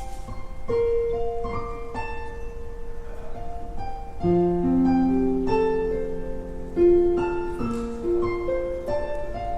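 Piano playing a slow melodic passage of held notes, with lower notes and chords joining about four seconds in.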